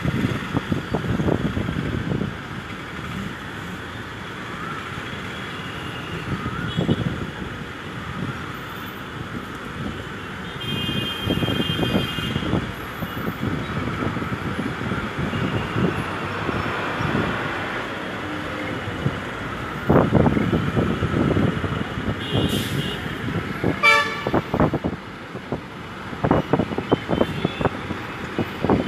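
Road traffic noise from a jammed city street, with vehicle horns: one horn held for over a second about eleven seconds in, and shorter horn blasts at about twenty-three and twenty-four seconds in.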